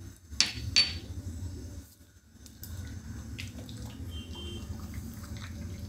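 Pasta boiling in an aluminium pot of water on a gas burner: a steady low rumble of flame and bubbling water, with a silicone spatula stirring the pasta in the second half. Two sharp clinks of utensils on the pot sound about half a second in.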